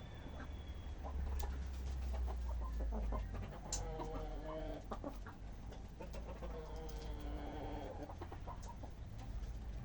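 Chickens clucking, with short calls scattered throughout and two longer drawn-out calls, one about four seconds in and another around seven seconds.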